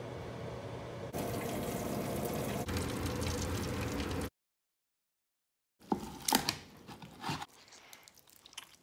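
Countertop air fryer running, a steady hiss, as a bacon-wrapped chicken cooks on its rotisserie; it cuts off suddenly about four seconds in. After a second and a half of silence come several bites into the roasted chicken and chewing.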